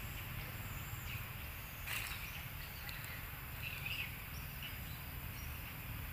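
Forest ambience: a steady high insect hum over a low rumble, with a few short high chirps about two and four seconds in.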